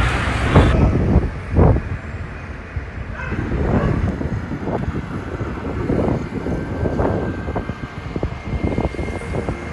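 Wind buffeting the microphone of a camera moving fast on a road bicycle, in uneven gusts over a low road rumble.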